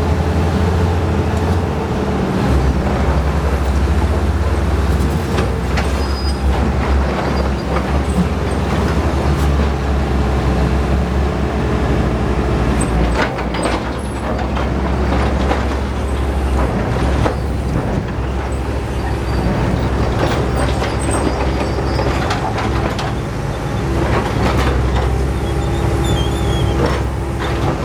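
Diesel engines of a bulldozer and a backhoe running hard as they push against a boulder, a steady low drone, with scattered knocks and scrapes of metal on rock.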